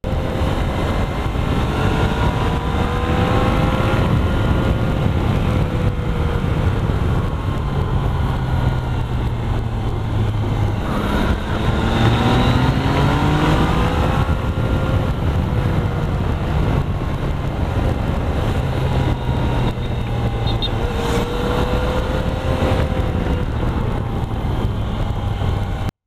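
Motorcycle engine running under way over a dense rush of wind and road noise, its pitch rising and falling with the revs through the bends. About eleven seconds in the revs drop, then climb steeply as the bike accelerates again.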